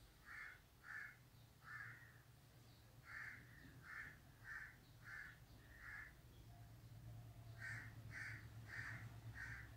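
Faint bird calls, repeated about two a second in three runs of several calls each, over a faint low steady hum.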